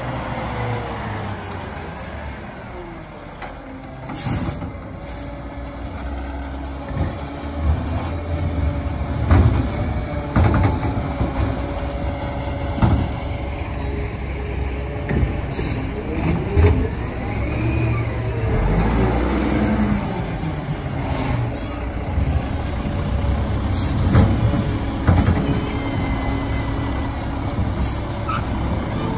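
Diesel engines of garbage trucks, a Peterbilt 520 automated side-loader and a Mack LE rear-loader, running and revving up and down as they move along the street. Air brakes squeal and hiss near the start and again about two-thirds of the way through. Several sharp knocks are heard along the way.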